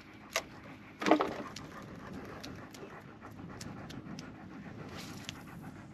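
A dog panting steadily, with a brief louder noise about a second in.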